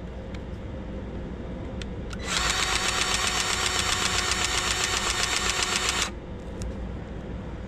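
A motor-driven tool runs for about four seconds, a loud, fast, even buzzing, starting a couple of seconds in and cutting off abruptly, over a steady low engine hum.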